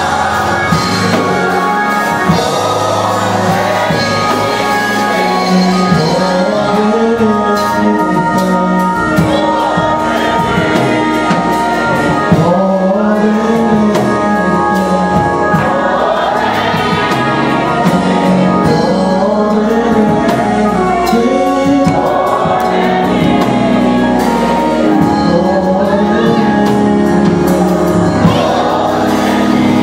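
Gospel worship music with a band and voices singing together, a choir or congregation.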